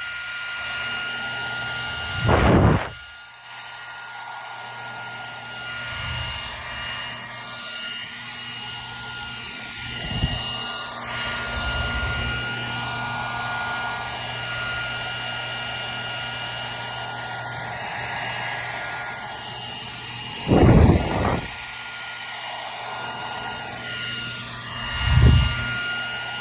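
Hair dryer running steadily: an even rush of air with a constant whine over a low motor hum. Four brief loud bursts break it at scattered moments.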